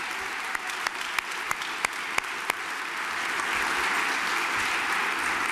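Audience applauding: individual sharp claps stand out in the first couple of seconds, then the clapping grows fuller and louder.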